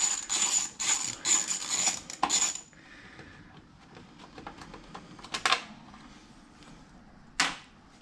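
Small socket ratchet clicking in quick spurts for the first two and a half seconds as an 8 mm bolt is backed out of the motorcycle's fork cover. A few light metallic clinks of the loose bolt and tool follow, the sharpest about seven and a half seconds in.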